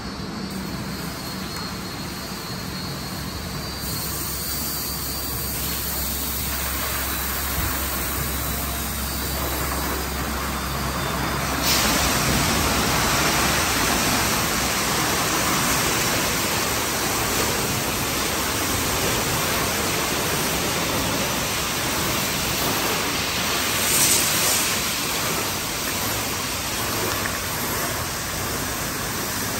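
Tunnel car wash equipment running: a steady hiss of water spray jets and spinning cloth wash brushes over a low machinery hum. About twelve seconds in, the spray turns on harder and the hiss grows louder and fuller.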